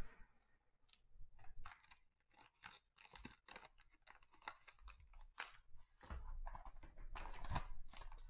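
Plastic shrink-wrap on a trading-card hobby box crinkling and tearing as the box is picked up and unwrapped: faint scattered crackles and clicks that grow busier, with some handling knocks, about six seconds in.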